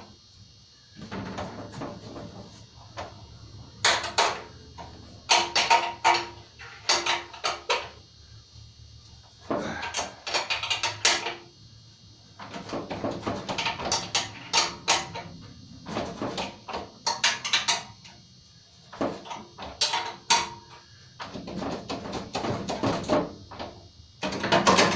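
A box-end wrench clinking and scraping on the seat-mounting bolts and washers as they are tightened. Clusters of short metallic clicks and knocks come every few seconds, with brief pauses between.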